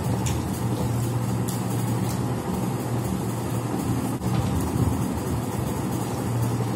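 A steady low hum over a soft even noise, with a few faint ticks.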